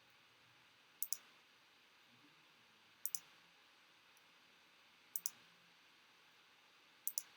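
Faint computer mouse clicks, four of them about two seconds apart, each a quick double click of button press and release. Each click re-runs a list randomizer.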